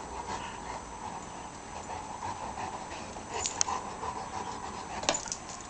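St. Bernard puppy panting during play, with a few short sharp clicks about three and a half and five seconds in.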